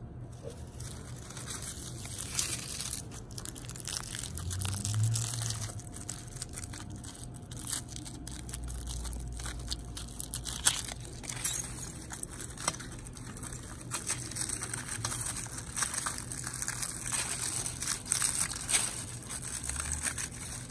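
Aluminium foil crinkling as hands peel it off a foil-wrapped toy car: a continuous crackle full of sharp little crinkles.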